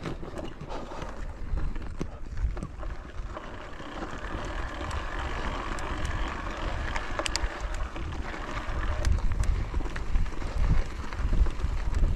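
Wind buffeting the microphone, growing stronger toward the end, with scattered small clicks and rattles from moving over a rough trail.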